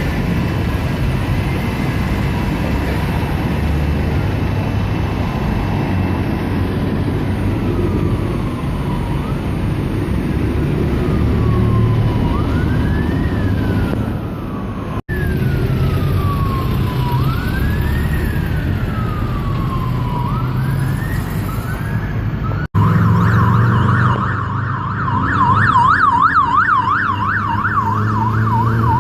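Emergency vehicle siren sounding over steady road-traffic rumble: slow rising and falling wails through the middle, then a fast yelp for the last several seconds.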